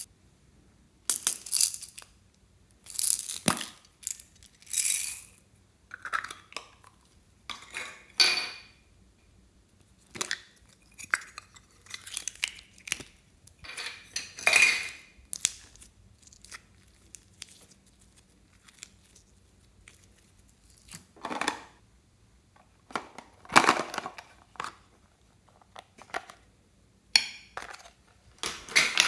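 Hands handling small objects over a glass bowl of slime with foam beads: a dozen or so short bursts of clicks and rustles, separated by near-quiet gaps, the loudest around a third, halfway and three-quarters of the way through.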